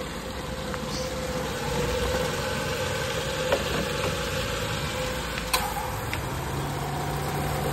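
Nissan GA13 carbureted four-cylinder engine idling steadily, just after being started. A steady low hum joins in about six seconds in.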